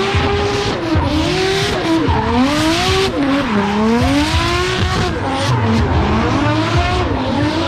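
Drift car's engine revving hard, its pitch rising and falling again and again as the throttle is worked, over the hiss and squeal of the rear tyres spinning and sliding sideways.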